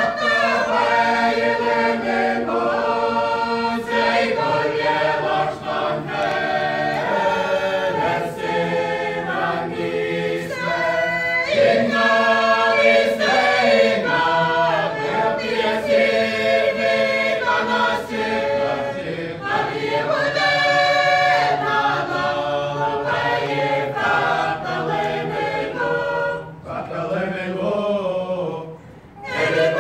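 Mixed choir of women and men singing together a cappella, with no instruments, in long held phrases; the singing breaks off briefly near the end before the next phrase begins.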